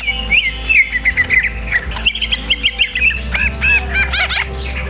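A young songbird chirping and squeaking: a rapid run of short, high chirps, then arched, squeaky notes about three seconds in. A steady low hum runs underneath.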